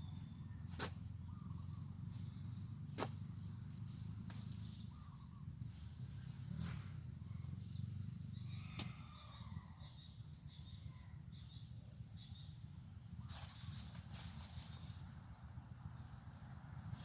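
Faint outdoor farm ambience: a steady high insect hum over a low rumble, with four sharp clicks or knocks spread through and a few faint chirps in the middle.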